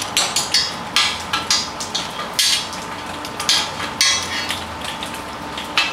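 Irregular metallic clicks and clanks as a steel locking C-clamp is fitted and tightened over square steel tubing and a round bar, about a dozen sharp knocks with a bright ring.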